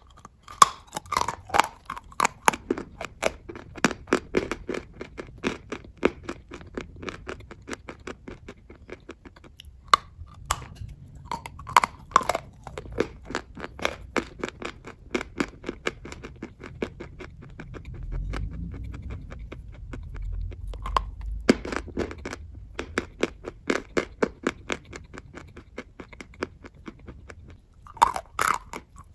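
A person biting and chewing dry chalk: a rapid, irregular stream of sharp crunches that thins out for a few seconds past the middle.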